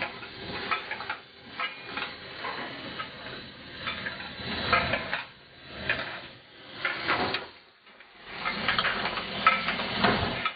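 Gill net being hauled aboard a fishing boat through a net hauler: irregular metallic rattling and clanking with spray and net swishing, swelling and fading every second or two.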